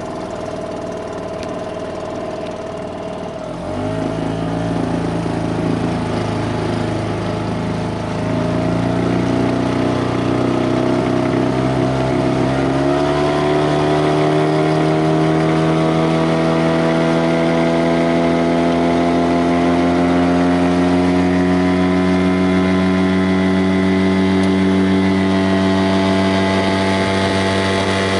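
A motor engine running steadily, gets louder about 4 s in and again about 8 s in, then its pitch climbs slowly as it gathers speed.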